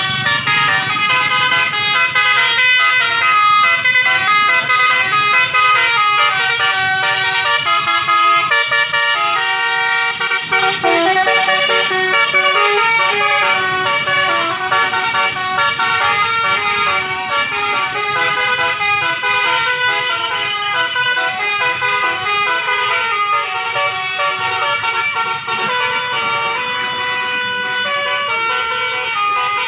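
Basuri 'telolet' multi-tone bus air horn playing a melody, its notes changing pitch in quick succession without a break.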